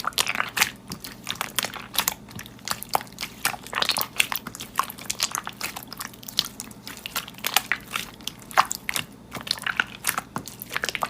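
Slime being squished and pressed by hand, giving a dense, irregular run of small clicks and crackles.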